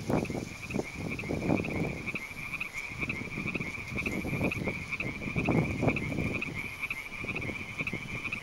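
Frog croaking, a run of irregular low calls about once or twice a second, over a steady, high, rapidly pulsing trill.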